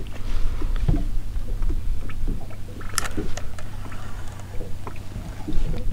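Steady low rumble on a small fishing boat, with scattered light knocks and clicks from fishing gear being handled on deck; one sharper click about three seconds in.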